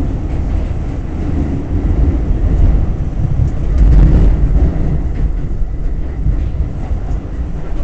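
R46 subway car in motion, heard from inside the car: a steady heavy rumble of wheels on rail with scattered clicks, swelling louder about halfway through.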